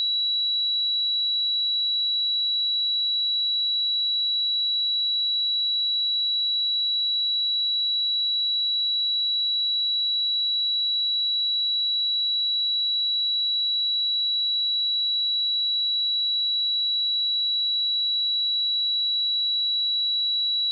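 Pure sine-wave test tone at 3915 Hz, a single high-pitched steady tone held without change.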